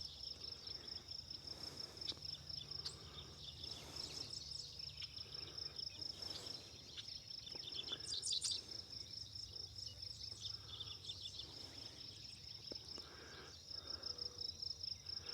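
Insects trilling in a steady, rapid, high-pitched pulse, with faint scattered chirps and a brief louder burst of chirping about eight seconds in.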